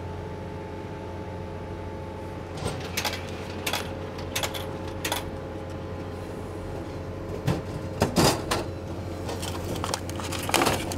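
Refrigerated bento vending machine dispensing a lunch box: a steady hum with scattered clicks and knocks as the item is delivered, then louder knocks about eight seconds in as the delivery flap at the bottom is opened and the boxed bento is taken out.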